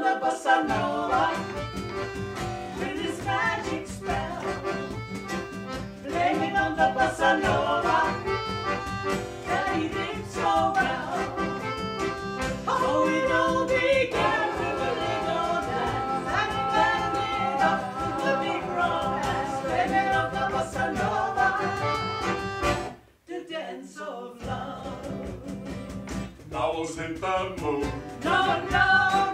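Small acoustic band playing a bossa nova song: accordion, acoustic guitar, double bass and cajon, with voices singing. About 23 seconds in the music stops for a moment, then comes back softer and builds up again near the end.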